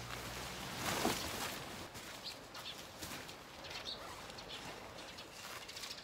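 Pop-up tent springing open: a whoosh of tent fabric about a second in, then softer rustling as it settles on the ground.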